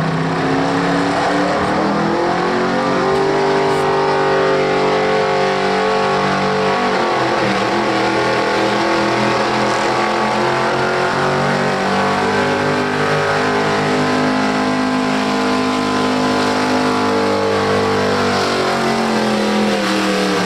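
Square-body pickup truck's engine revving hard under load while pulling a sled down the track. The pitch climbs over the first few seconds, sags around seven seconds in, climbs again, then falls away near the end as the pull runs out.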